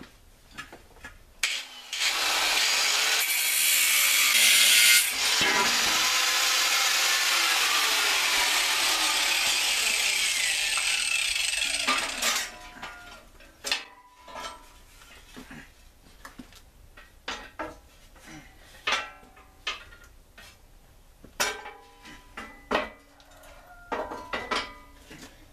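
A power cutting tool cuts through the steel lawn tractor frame for about ten seconds, with a brief break about five seconds in. Then comes a series of ringing metal clanks and knocks as the cut-off frame section is lifted away and the frame is handled.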